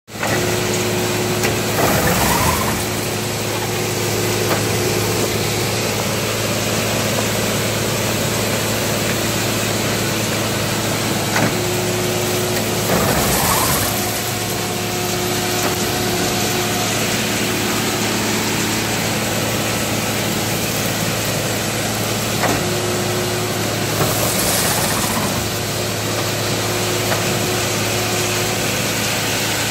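Engine of a Tenias continuous almond-harvesting machine running steadily. Roughly every eleven seconds a louder rushing surge rises over it as the machine's shaker works a tree, with leaves and debris thrashing.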